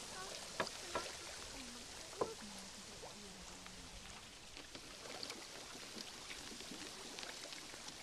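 Lake water splashing and dripping beside a canoe: a soft, steady wash with a few sharp plinks of drops, the clearest about half a second, one second and two seconds in.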